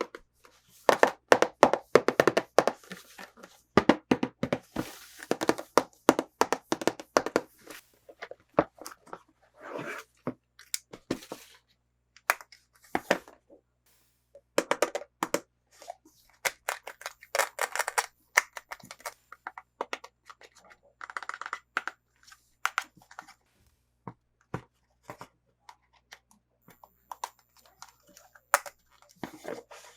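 Toy packaging being opened by hand: crinkling and tearing in irregular bursts, with scattered sharp clicks and taps and short pauses between them.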